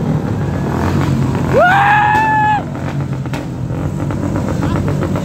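Motorcycle engines running together in a steady low rumble. There is a single sharp exhaust pop about three seconds in, the kind of backfire riders make on purpose by 'misfiring' their bikes. A loud tone rises and then holds for about a second, a little before the pop.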